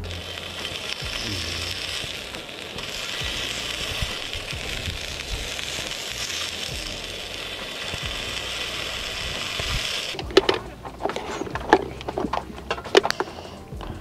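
Pork skewers sizzling on a round grill plate as tongs turn them. The sizzle cuts off suddenly about ten seconds in, followed by a string of light knocks and clinks.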